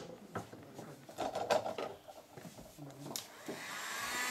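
Light knocks and rubbing of thin bent wooden strips for a setar bowl being handled and bound together with a strap, with faint voices. About three and a half seconds in, an electric motor starts up and spins up to a steady whine.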